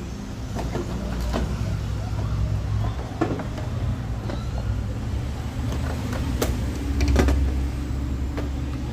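Scattered clicks and knocks of plastic and metal parts being handled on a washing machine during a pressure-switch replacement, over a steady low hum.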